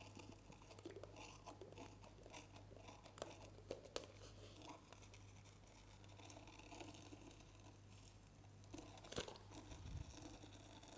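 Faint wet squelching and crackling as a plastic squeeze bottle of contact lens solution is squeezed out into fluffy slime, with a few sharp little clicks, over a low steady hum.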